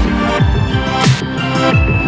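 Electronic background music with a steady beat, deep bass notes sliding down in pitch, and a sharp snare-like hit about a second in.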